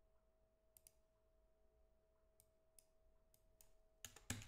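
Near silence broken by scattered faint computer mouse and keyboard clicks, with a louder cluster of clicks near the end.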